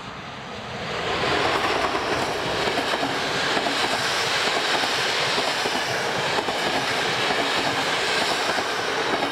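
An FS E656 electric locomotive and its train of historic passenger carriages passing close at speed. The sound of the wheels on the rails swells about a second in and stays loud as the carriages go by.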